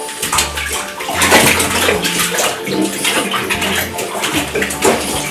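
Bathwater sloshing and splashing in a bathtub as hands rub wet towels over dogs soaking in it.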